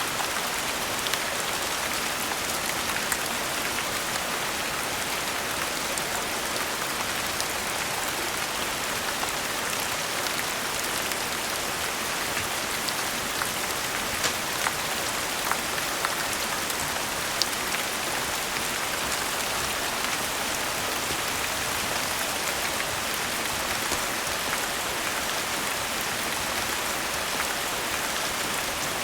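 Steady rain falling, an even hiss with a few sharp clicks scattered through it, most of them around the middle.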